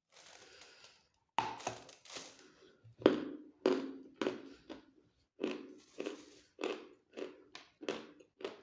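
A brief rustle of packaging, then close-miked crunchy chewing of a snack, one or two crunches a second.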